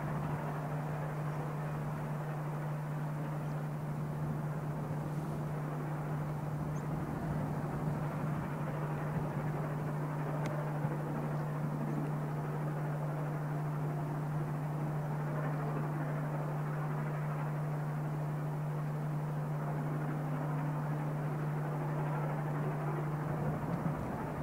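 LMS Princess Royal class 4-6-2 No. 6201 Princess Elizabeth, a steam locomotive working hard with its train up the grade, heard from far off as a steady, even rumble with no separate exhaust beats. A constant low hum sits under it.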